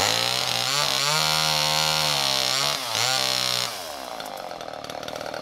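Gas chainsaw cutting through dry wood at high revs, its pitch sagging and recovering as the chain bites, with a brief dip near three seconds. About three and a half seconds in the throttle is let off and the saw drops to idle.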